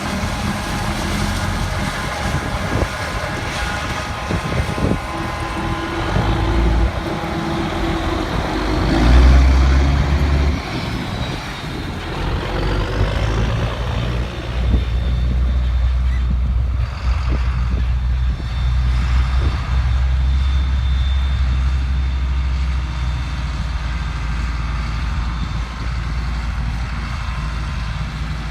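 Heavy harvest machinery engine running steadily through the corn harvest, with a surge in loudness about nine seconds in and some rising and falling pitch changes soon after.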